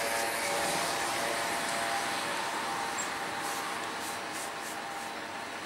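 Steady outdoor city street ambience: an even wash of noise, likely distant traffic, that slowly fades.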